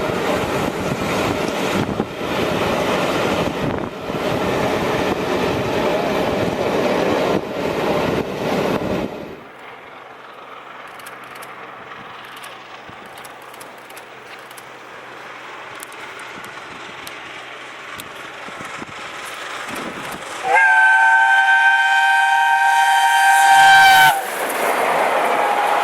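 Steam locomotive 60163 Tornado and its train running past, loud and rumbling; about nine seconds in the sound drops sharply to a quieter stretch. Around twenty seconds in the locomotive's whistle sounds for about three and a half seconds, several notes at once held steady, and then the train's passing noise returns loud.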